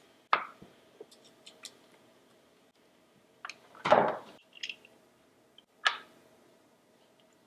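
Hard plastic outlet housing, small screws and a screwdriver knocking and clacking against each other and the wooden workbench as they are handled and set down: a few sharp knocks, the loudest about four seconds in, with small clicks between.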